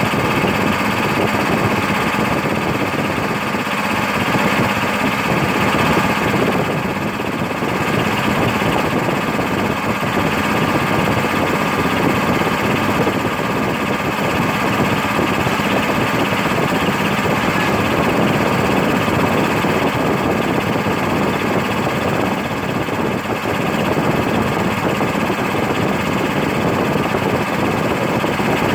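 Bauer high-pressure air compressor running steadily, a constant mechanical hum with a fixed pitch.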